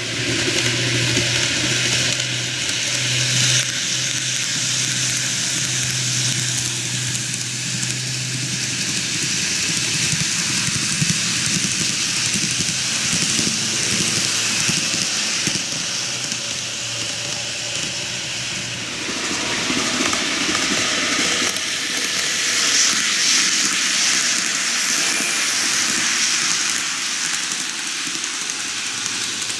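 N-gauge model train, a JR 485 series 3000 set, running on canted model track: a steady rolling hiss of wheels and running gear. A low hum sounds through the first third, and the sound grows louder about three-quarters of the way in as the train nears.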